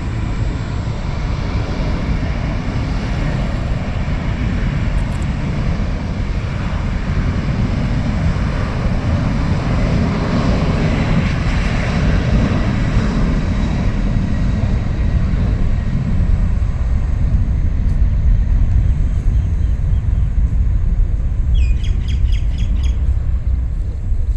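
Jet airliner on its take-off roll: a steady low rumble of engines and wheels that builds slowly. A short run of high chirps sounds near the end.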